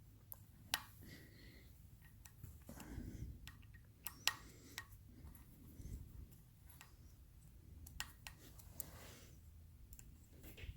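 Faint, scattered metallic clicks and light taps of a small hex key working on a screw and handling small metal parts while unscrewing a component from a slip ring assembly.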